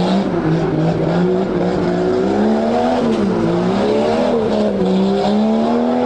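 Off-road competition truck's engine revving hard under load. Its pitch rises and falls every second or two as the throttle is worked, climbing steadily near the end.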